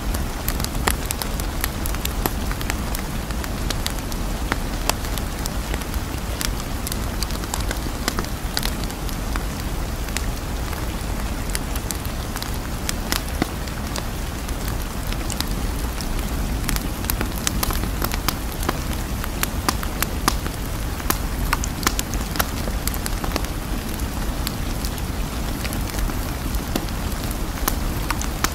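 Steady rain: an even hiss with many scattered sharp drop clicks.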